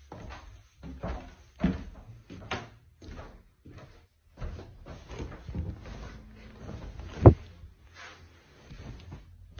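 Wooden knocks and thumps of someone climbing a loft-bed ladder and moving about on the bed, with one sharper knock about seven seconds in.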